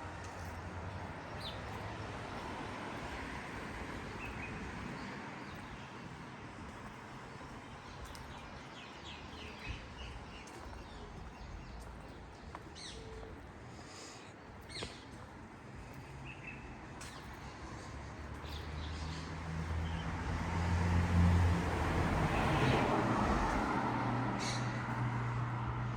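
Street ambience with small birds chirping on and off, then a vehicle passing, growing louder through the last third and loudest near the end.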